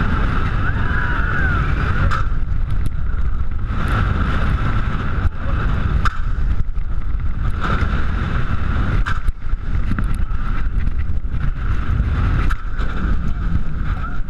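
Goliath roller coaster train running at speed along its track: heavy wind rumble on the microphone, a steady high whine running throughout, and scattered short rattles and clatters.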